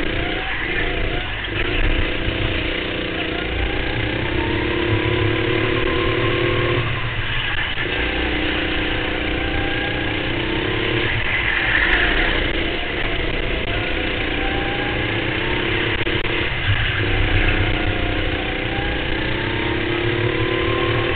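Racing go-kart engine revving up repeatedly, its pitch climbing steadily on each straight and dropping back briefly as the throttle is lifted for the corners, about four times.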